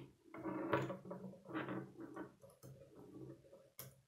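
K'nex plastic pieces being handled and fitted together: irregular small clicks and rattles of plastic parts, with one sharp click a little before the end.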